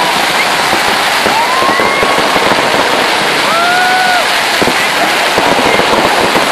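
Fireworks display crackling densely, a continuous rapid popping and sizzling of many crackle stars. A few drawn-out voices from the crowd call out over it, rising and falling in pitch.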